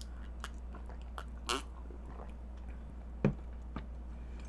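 Close-miked mouth sounds of someone drinking milk from a mug: a few small clicks and swallows, then a short low knock a little after three seconds in as the mug is set down, over a steady low hum.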